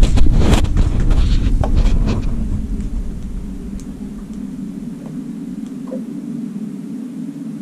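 Wind buffeting the microphone as a heavy low rumble that eases after about three seconds, over a steady low hum, with several knocks and clicks of handling in the first two seconds.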